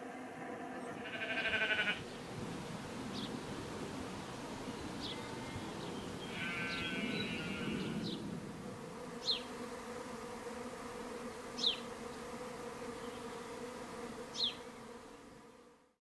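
Honey bees humming steadily as they fly and crowd around a hive entrance. Two longer calls from another animal come about a second in and again around seven seconds, and short high falling notes sound about five times, every two or three seconds; everything fades out at the very end.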